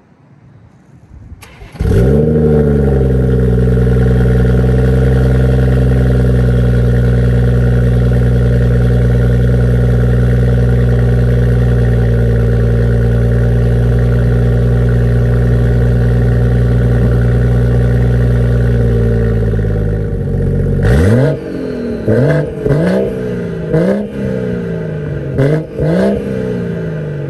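BMW 340i's turbocharged 3.0-litre B58 inline-six, with a full Dinan exhaust, starting cold. It catches about two seconds in and settles into a steady fast cold idle. About twenty seconds in it is blipped through a series of quick revs that rise and fall.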